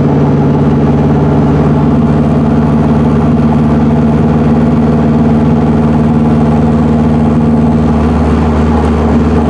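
Turbocharged Acura Integra's four-cylinder engine running steadily while the car is driven slowly, its note stepping up a little about three seconds in. The exhaust does not yet run to the back of the car.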